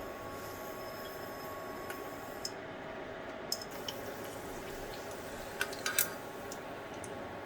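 Kitchen utensil clinks and clicks over a steady hiss, with a short cluster of louder clinks a little past the middle.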